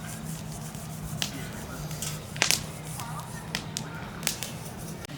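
A handful of sharp cracks or snaps, the loudest a close pair about halfway through, over a steady low hum.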